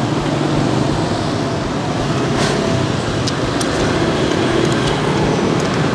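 Steady street traffic with engines running past, and a few light clicks over it.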